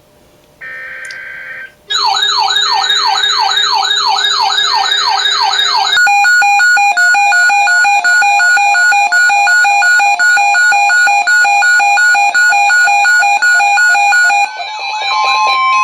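Emergency Alert System tones on a NOAA Weather Radio broadcast, signalling a Severe Thunderstorm Watch. After a short electronic tone about a second in, a warbling, siren-like tone sweeps up and down about three times a second. From about six seconds in it gives way to a loud, steady alarm tone broken by short gaps about once a second.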